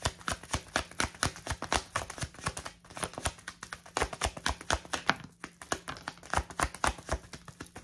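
A tarot deck being shuffled by hand: a quick, irregular run of dry card clicks and flicks.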